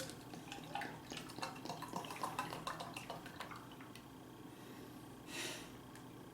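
Makgeolli being poured, with small liquid clicks and drips over the first few seconds, then a short hiss near the end.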